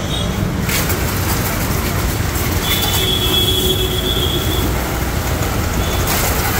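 4.5 HP, 3200 W, 200-bar electric high-pressure washer running. The pump hums steadily, and the water jet starts hissing under full pressure less than a second in as it washes down motorcycles. A high steady whine sounds for about two seconds near the middle.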